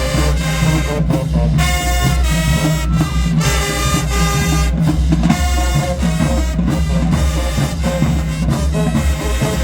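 High school marching band playing its halftime show: brass section blasting short punchy chords and held notes over a steady pounding of bass drums and snare.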